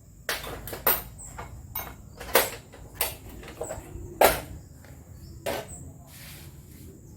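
Irregular knocks and clatters of hard objects being handled and set down, about ten in all, the loudest a little over two seconds in and about four seconds in.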